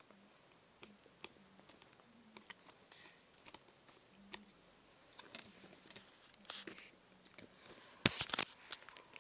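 Green slime being squeezed and worked by hand, making soft sticky clicks and little squelching crackles. A louder cluster of pops comes about eight seconds in.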